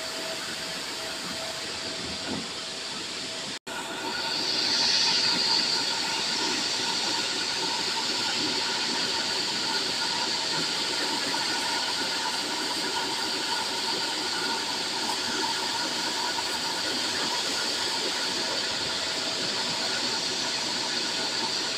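Machinery running steadily: a loud, even hiss with a few held tones beneath it. It cuts out for an instant about three and a half seconds in and comes back a little louder.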